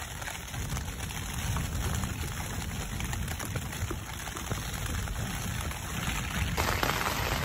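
Heavy rain falling steadily on the flysheet of a Hilleberg Soulo tent, heard from inside.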